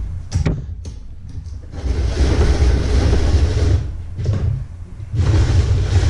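Electric vegetable shredder running as cabbage heads are pushed down into it and shredded: a steady motor rumble with a rough shredding noise that grows louder, drops off for about a second near the end, then picks up again.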